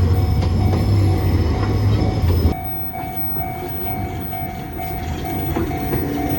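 Train running with a loud low rumble that cuts off abruptly about two and a half seconds in. A quieter scene follows, with a steady pulsing tone.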